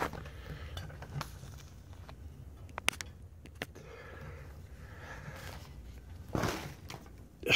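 Faint handling sounds of Cat 5e network cable being pushed through a hole in the framing: light rustling and a few sharp clicks near the middle, over a low steady hum. Near the end comes a short rush of breath.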